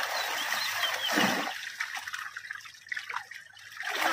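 Water splashing and trickling as a crowd of netted rup chanda (pacu) thrash at the surface and a bamboo basket is scooped through them. The loudest splash comes about a second in, followed by quieter drips and small splashes.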